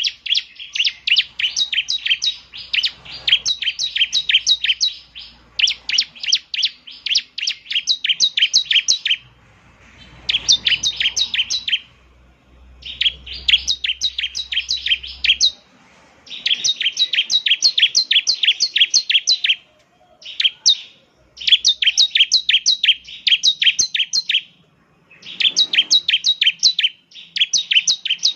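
Bar-winged prinia (ciblek) singing loudly: phrases of fast, sharp, evenly repeated high notes, about eight a second, each phrase lasting two to three seconds with short pauses between.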